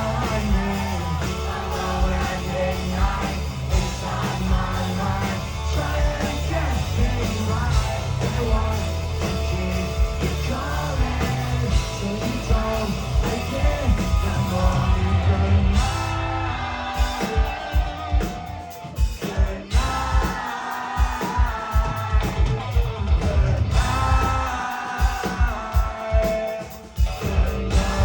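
Live rock band music, loud with heavy bass and some singing. About halfway through, the steady bass drops away, leaving separate low hits for several seconds, and the full band comes back near the end.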